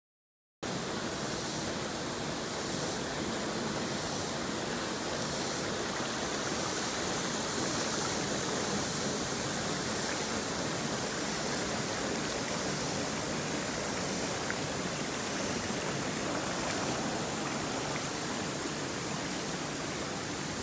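Rushing water of a spring-fed stream pouring over a low mill-dam spillway and running fast over a shallow bed: a steady, unbroken rush that starts abruptly just after the start.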